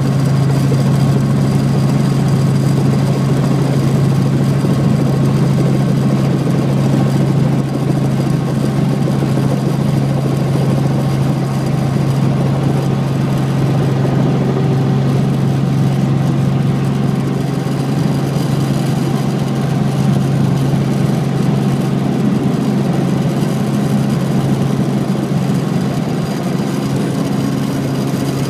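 Light helicopter's engine and rotor heard from inside the cockpit during the final approach and descent to landing: a loud, steady drone with a strong low hum.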